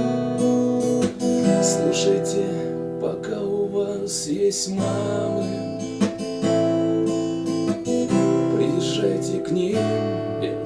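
Instrumental music led by acoustic guitar strumming chords, with held notes underneath and no singing.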